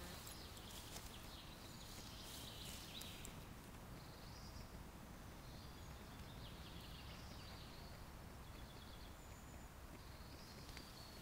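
Quiet woodland ambience with faint birdsong: short chirps and trills now and then, over a low steady background hiss. A few faint rustles and clicks in the first few seconds.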